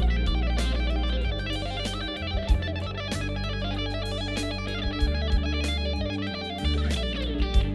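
Sunburst Epiphone semi-hollow-body electric guitar played through effects, picking a busy run of single notes over a low sustained bass, with scattered percussive hits.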